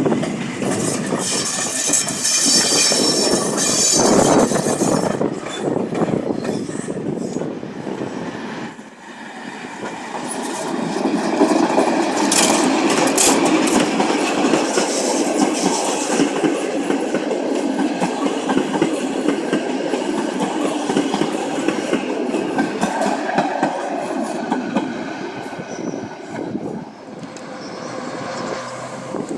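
Passenger train moving through a railway station, its wheels clattering over rail joints and points. A high wheel squeal rings out in the first few seconds. The noise dips briefly about nine seconds in, then a long steady rumble follows.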